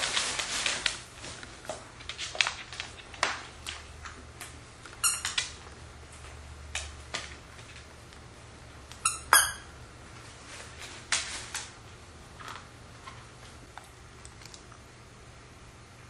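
Paper gift bag and tissue paper rustling as a Scottish terrier digs a toy out, then a plush dog toy's squeaker squeaking in two quick bursts, about 5 and 9 seconds in, as the dog chews it, with scattered light rustles and clicks between.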